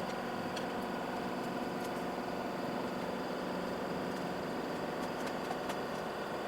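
Steady machine hum, like a fan or small motor running, holding many even tones without change, with a few faint clicks.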